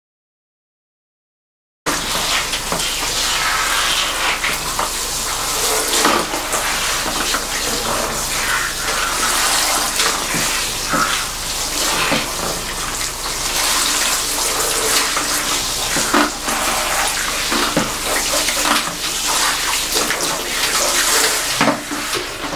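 Handheld salon shower head spraying water onto hair and into a backwash basin, a steady hiss with uneven splashes. It starts about two seconds in, after a brief silence.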